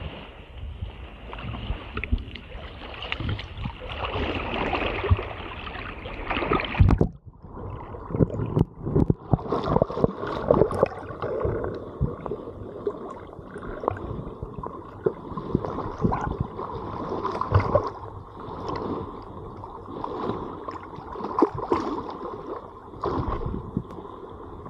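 River water splashing and sloshing close to the microphone, with many irregular small splashes; the sound changes abruptly about seven seconds in.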